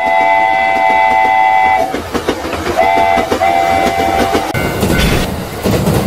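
Train whistle sounding a chord in three blasts (long, short, then medium) over the rhythmic clickety-clack of wheels on rail joints as a train passes.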